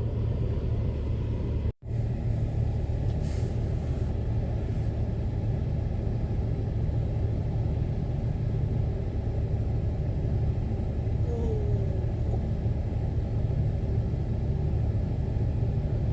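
Steady low rumble of a vehicle's engine and tyres, heard from inside the cabin while driving through snow. The sound drops out for an instant about two seconds in.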